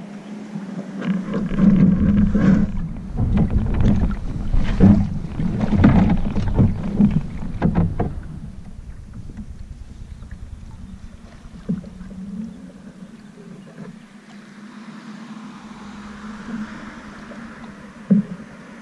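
Hull of an Old Town Saranac 146 canoe scraping and bumping as it is pushed off a grassy bank and climbed into, irregular knocks carried loudly through the hull. After about eight seconds it turns quieter as the canoe is paddled on calm water, with a few light knocks, a sharper one near the end.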